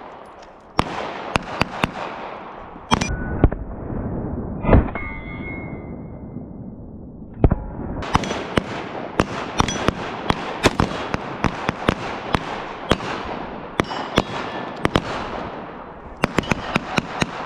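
Pistol shots fired in quick succession, sharp cracks of varying loudness, sparse at first and coming thick and fast from about halfway through.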